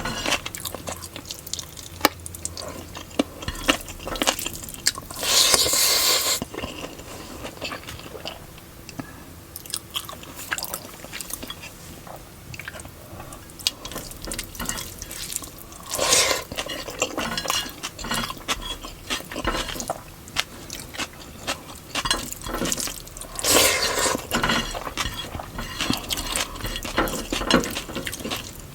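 Close-miked eating of chicken biryani with raita: chewing and wet mouth sounds with many small clicks, and louder noisy bursts about five, sixteen and twenty-four seconds in.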